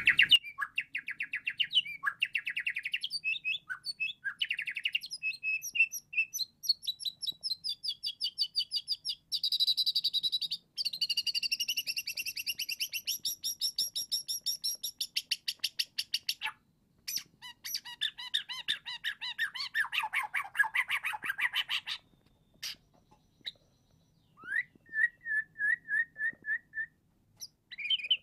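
Juvenile white-rumped shama (murai batu), about eight months old, singing: long runs of fast, high-pitched repeated notes and trills. The song breaks off for a couple of seconds about three-quarters of the way through, then resumes with a short row of evenly spaced notes.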